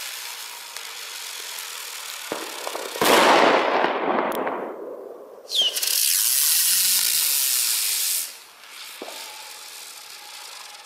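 Handmade 16 mm butterfly fireworks burning with a rushing hiss. The loudest one starts about three seconds in and falls in pitch as it fades. A second starts abruptly near the middle, hisses steadily for under three seconds with a brief whistle at its start, then cuts off.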